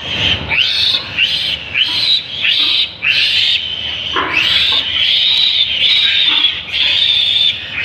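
Piglet squealing loudly in distress while held upside down by its hind legs for castration. It gives a run of short, high-pitched squeals about twice a second, then one long unbroken squeal from about halfway in.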